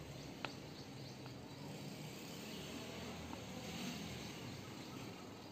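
A sharp fingernail click about half a second in, with a couple of fainter ticks later, from picking nits and lice out of hair by hand, over a steady background hum.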